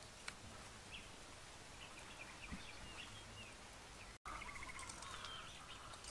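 Faint outdoor ambience with small birds chirping now and then. About four seconds in the sound drops out for an instant, then comes back slightly louder with a short bird trill.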